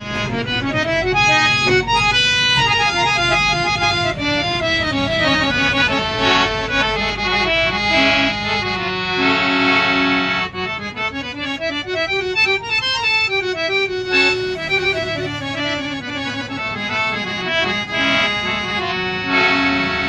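Hand-pumped harmonium with bass and male reed sets, played in quick runs of notes up and down the keyboard, with chords held briefly about halfway through and near the end.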